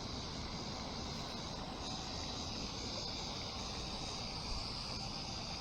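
Steady outdoor background noise with no distinct events: a low rumble under a steady high-pitched hiss that grows slightly stronger about two seconds in.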